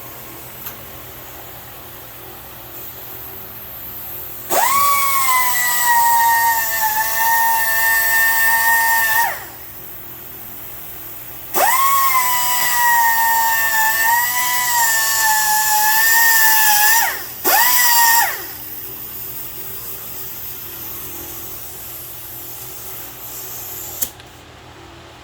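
Small high-speed power tool, of the drill or rotary-tool kind, run three times: two runs of about five seconds each and a short burst near the end. Each run is a high whine that spins up quickly and then sags a little under load. It is being used on a crank seal to make its stamped numbers readable.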